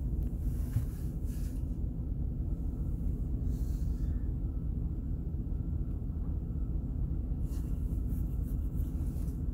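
Washworld Razor touchless in-bay car wash at work, heard from inside the vehicle's cabin: a steady low rumble, with short hisses of spray on the body now and then.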